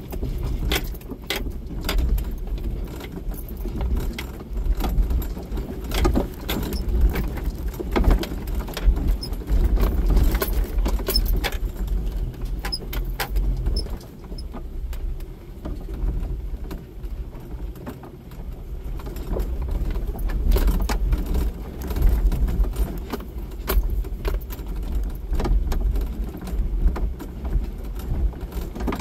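Jeep Wrangler rolling slowly over a rocky dirt track, heard from inside the cab: a low engine and tyre rumble with frequent rattles and clinks as the vehicle jolts over the stones. The rumble eases off for a few seconds midway, then picks up again.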